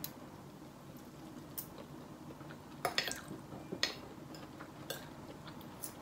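Metal spoon and fork clinking against a steel plate during a meal: short sharp clinks about once a second, the loudest around three and four seconds in, over a faint room hum.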